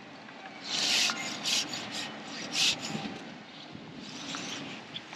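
Short rasping, rubbing rustles from an angler handling a feeder rod and spinning reel, several in the first three seconds and then fainter.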